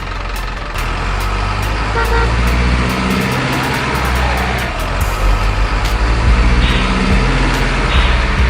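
Miniature RC truck's engine sound running as a steady low diesel-like rumble, which grows louder about a second in, with a brief horn toot about two seconds in.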